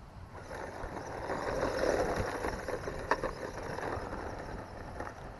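Electric motor and drivetrain of a GPTOYS S926 1:12 scale 4WD RC truck running as it drives, with a single click about three seconds in. The battery is nearly flat, and the truck may be slowing down.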